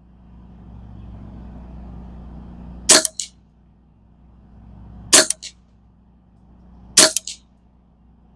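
Three shots from a Ruger 10/22 .22 LR semi-auto rifle firing subsonic rounds, spaced about two seconds apart, each followed a fraction of a second later by a softer click or two. A low wind rumble on the microphone swells and fades between the shots.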